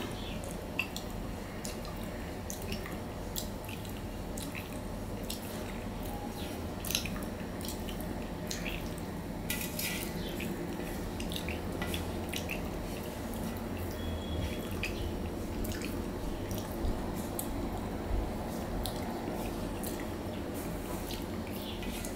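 Wet eating sounds: fingers scraping the last of mashed potato and lentil dal off a stainless steel plate, with chewing and lip-smacking, as many small irregular clicks and ticks.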